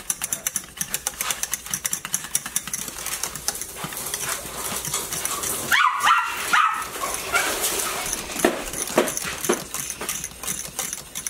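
Dog yapping excitedly at its owner coming home: a cluster of yaps about six seconds in and a few more near the end. Underneath, a wire whisk clicks rapidly against a stainless saucepan.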